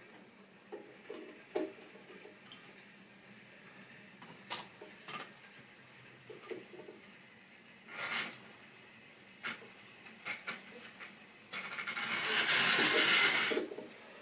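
Light clicks and knocks of model railway stock being set on the track by hand, then a louder rushing noise for about two seconds near the end.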